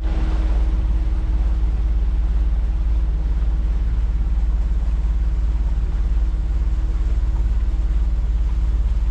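A boat engine running steadily: a low, even drone with a constant hum and a fine regular pulse.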